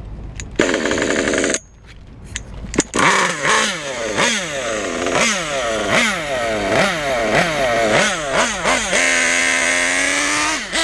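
Kyosho KE21 two-stroke nitro engine in an MP9 buggy: a steady buzz for about a second as it is started. From about three seconds in it revs up and falls back in quick repeated throttle blips, then holds a steady higher note near the end.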